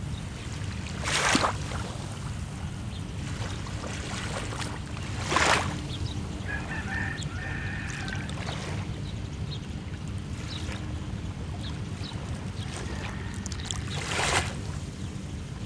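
Sea waves washing onto the shore three times over a steady low rumble, with faint scattered ticks. Around the middle a pitched call lasting about two seconds sounds in the distance.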